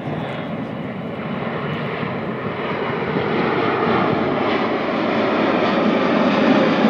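Large jet airliner flying low overhead: loud, steady jet engine noise that grows louder as the plane comes over.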